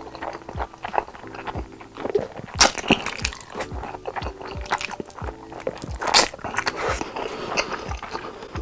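Background music with a steady beat, over close-miked eating sounds: a person eating noodles, with a few loud crunchy bites or slurps, the loudest about two and a half, three and six seconds in.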